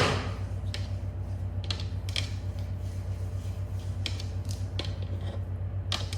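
Scattered light clicks and taps, like small objects being handled, over a steady low hum.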